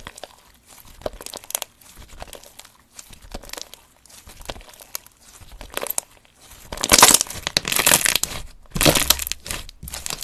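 Slime being squeezed, kneaded and stretched by hand, crackling with many small clicks. The crackling is scattered at first, and the loudest, longest stretches of it come in the last few seconds.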